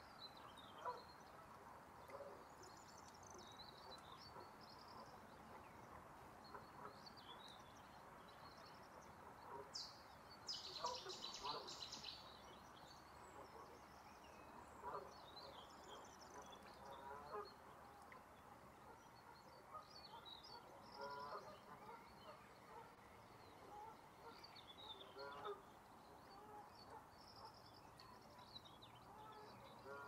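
Faint outdoor ambience of scattered distant bird calls: short high chirps and some lower calls from several birds, with a brief louder burst of high chirping about ten seconds in.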